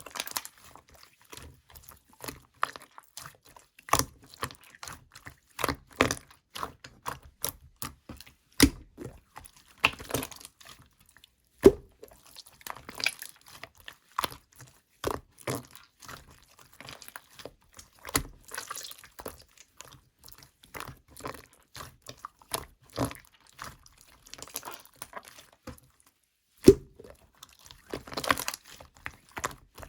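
Thick glitter slime squished, pressed and poked by hand, making a stream of irregular sticky clicks and wet pops, with a few louder pops.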